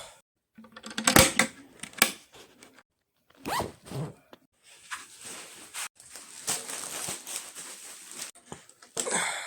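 Zipper on a small bag being pulled several times in short irregular strokes while clothes are packed, with one longer pull past the middle.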